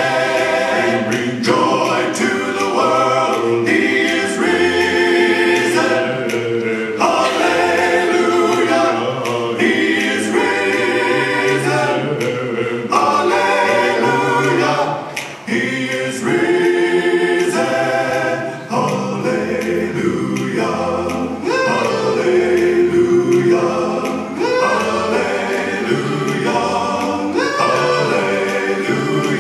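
Choir singing a cappella in harmony, with a brief pause between phrases about halfway through.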